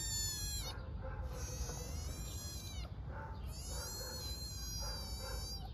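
Hungry black-and-white kitten meowing loudly for its mother: long, high-pitched cries that repeat, with about three calls in a row.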